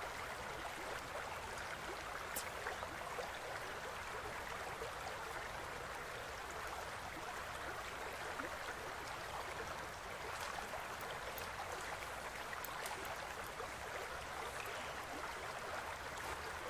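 Shallow river running steadily over stones and through a riffle, an even rushing of water, with a few faint clicks around the middle.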